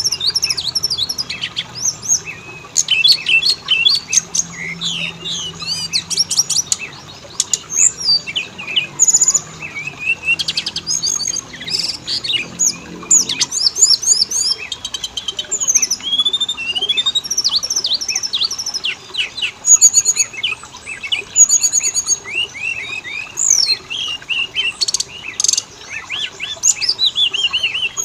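Oriental magpie-robin (kacer) singing without a break: a fast, varied run of clear sweeping whistles, chirps and rapid rattling trills.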